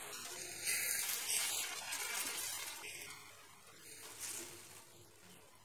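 Hot fried masala paste sizzling in a non-stick pan after water has been poured in, with a spatula stirring it through. The hiss dies away over the last couple of seconds as the water cools the pan.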